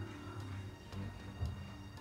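Background music with low sustained notes.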